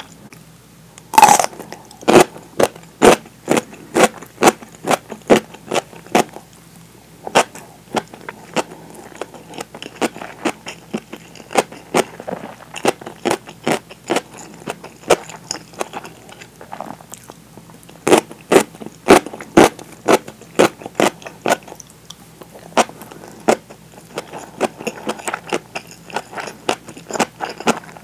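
Close-miked crunching of pickled daikon radish being bitten and chewed. A loud bite comes about a second in, then crisp crunches at about two a second with softer chewing between them, and a second run of loud crunches later on.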